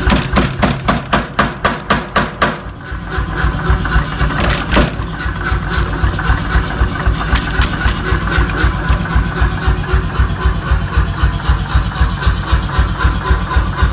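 A power hammer pounding an iPhone flat: rapid blows several times a second at first, a short lull about two and a half seconds in, one hard strike near five seconds, then the machine keeps running with a steady rhythmic beat over a low motor rumble.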